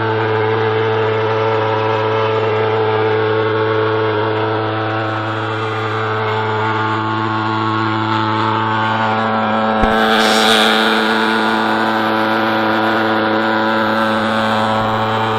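Stainless-steel thermal fogging machine's pulse-jet engine running, a loud steady buzzing drone while it blows out fog. About ten seconds in there is a brief click and a moment of extra hiss.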